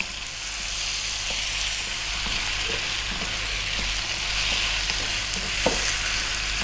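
Chicken pieces sizzling in hot mustard oil in a granite-coated wok as they are stirred with a wooden spoon: a steady frying hiss with a few light knocks of the spoon against the pan, the sharpest near the end.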